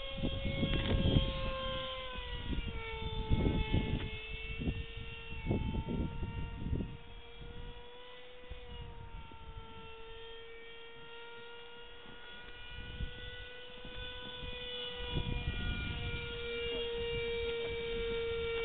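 Electric radio-controlled airplane's motor and propeller whining steadily in flight. Its pitch dips slightly about two seconds in and the whine grows louder near the end, with wind gusting on the microphone.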